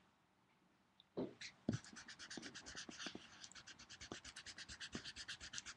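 Pencil scribbling on paper in quick, even back-and-forth shading strokes, about eight a second, starting about a second and a half in after a light knock.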